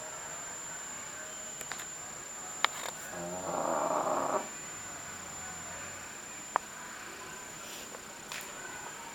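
A pug snoring in its sleep: one loud snore about three seconds in, lasting about a second. Two sharp clicks come before and after it.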